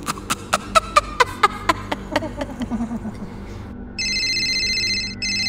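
A quick run of sharp clicks falling in pitch, then about four seconds in an electronic telephone ring with several high tones, broken once briefly just after five seconds.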